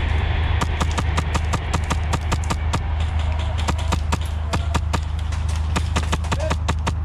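Airsoft gunfire: many rapid, irregular sharp snaps of shots and BBs striking, several a second, stopping near the end, over a steady low hum.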